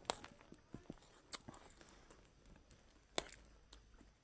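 Faint, scattered clicks and crunches of chatpat being eaten, with three sharper clicks: one at the start, one just over a second in and one about three seconds in.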